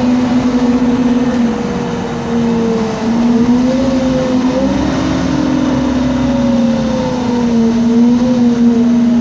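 The engine of a MAN Lion's City G articulated bus running under way, heard inside the bus cabin. The engine is a CNG-fuelled MAN E2876 straight-six. It makes a steady drone whose pitch wavers up and down a few times.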